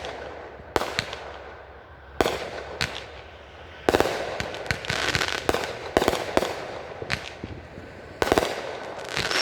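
Aerial fireworks bursting: a string of sharp bangs every second or two, each echoing away, with a burst of rapid crackling pops in the middle.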